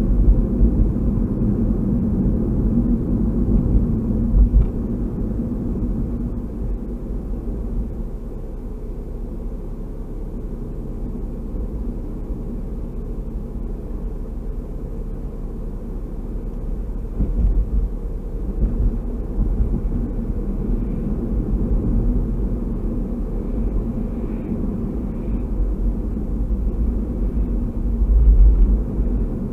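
Steady low road and engine rumble of a moving car, heard from inside the cabin, with a few louder low bumps, the strongest near the end.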